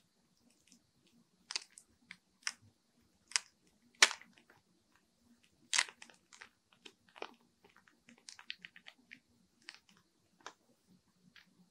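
Thin clear plastic packaging sleeve crinkling and crackling in the fingers as a paper insert is worked out of it: irregular short, sharp crackles, loudest about four and six seconds in.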